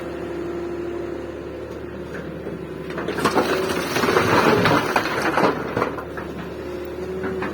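Diesel engine of a 2000 Daewoo 170W excavator running steadily with a held hydraulic whine. About three seconds in, a loud crunching and scraping stretch of two to three seconds as the bucket works its load, then back to the engine alone.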